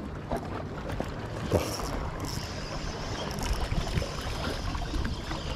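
Wind on the microphone and water lapping, with a spinning reel being wound from about two seconds in, a faint whir, as a small fish splashes on the line.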